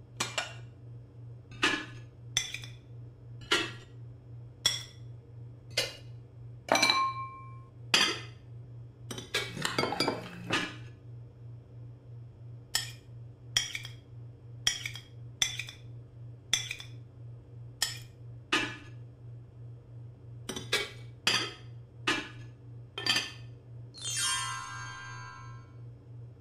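A knife cutting down through butter and clinking on a china plate, one sharp clink every half second to a second, with a busier run of clinks about ten seconds in. Near the end a short pitched cartoon sound effect plays over a faint steady hum.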